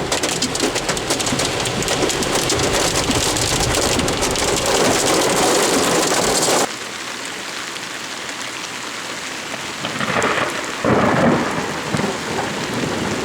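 Hail and heavy rain pelting a car, a dense clatter of many small hits. About halfway through it drops suddenly to a softer steady rain, with a brief louder surge about three-quarters of the way through.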